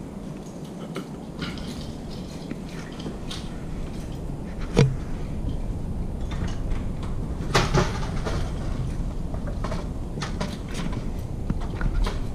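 Footsteps on a wooden floor under the low rumble of a handheld camera being carried, with scattered sharp knocks: one about five seconds in and a quick pair about halfway through.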